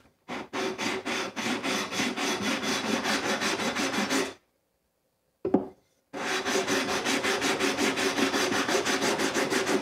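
Fret-leveling beam sanding back and forth across a guitar's frets in quick, even strokes, about five a second, pausing briefly about halfway through. This is a final light leveling pass over the fret tops before the final crowning.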